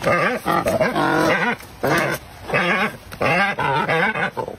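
Cormorants calling while being hand-fed fish: a string of wavering calls, each under a second, with short gaps between them.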